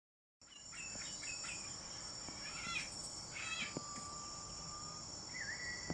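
Nature ambience of crickets chirping steadily in a high chorus, with a few short bird chirps and a brief whistle over it.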